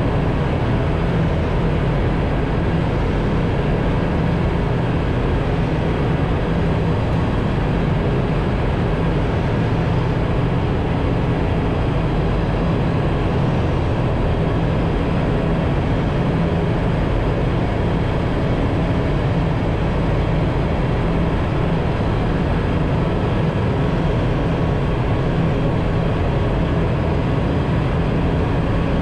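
Ship's engine room machinery running: a loud, steady drone with a strong low rumble that does not change.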